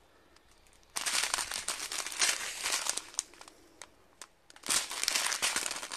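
Small plastic bags of diamond painting drills crinkling as they are handled, in two spells: about two seconds starting a second in, then a shorter one near the end.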